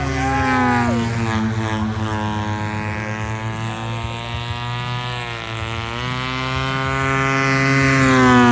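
Extreme Flight radio-control aerobatic airplane in flight, its engine and propeller running with a pitch that slides down and back up as it manoeuvres. It grows louder near the end as it passes close, then drops away.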